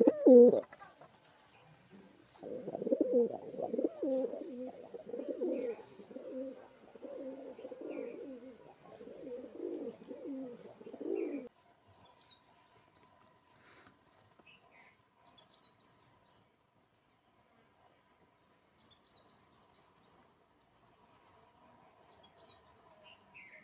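Pigeons cooing in a long run of low, rolling calls. These stop abruptly about halfway, and four short, rapid series of high, thin bird chirps follow.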